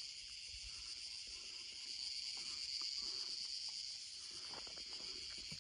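Steady, high, continuous chorus of crickets, with a few soft knocks in the second half.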